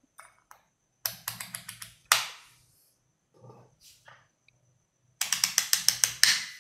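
Quick runs of sharp clicks, seven or eight at a time: a UNI-T UT61E digital multimeter's rotary selector dial being turned through its detents to switch the meter on and set it to amperes. A single louder knock comes about two seconds in.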